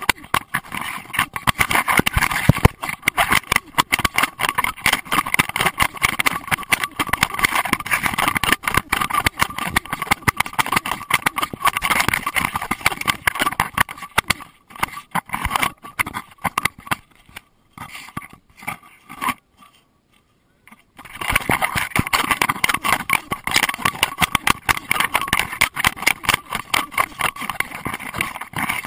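Handling noise from a GoPro Hero2 in its waterproof housing, worn on a Doberman's collar: a constant run of rapid, irregular scraping and knocking as the housing rubs and jolts against the dog while it moves. The noise drops away for a few seconds about two-thirds of the way through, then comes back.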